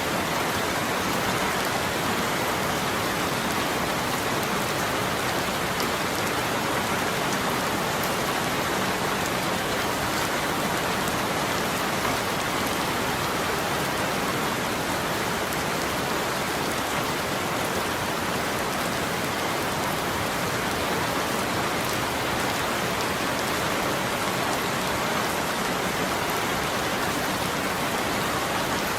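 Steady rainfall: an even, unbroken hiss with no thunder or separate drops standing out.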